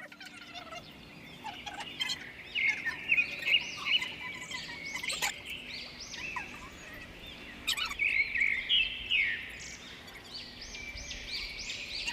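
Birds calling: dense runs of quick, high chirps that come in bursts, loudest about three seconds in and again near eight seconds in.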